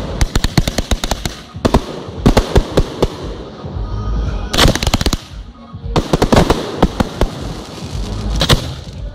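Aerial fireworks shells bursting, each followed by dense rapid crackling from the crackle stars. The crackling comes in several waves, with deep booms from the shells among them.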